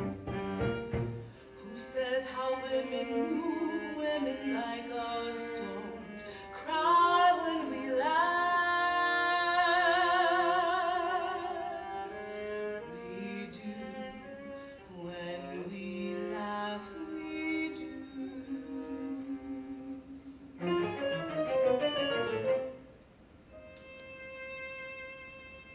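Soprano singing with wide vibrato over a string quartet of sustained bowed strings; the voice swells loudest about seven to twelve seconds in.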